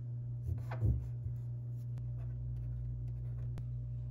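Scratching and rubbing on the surface of a plastic ID card, loudest about a second in, then a few faint ticks, over a steady low hum.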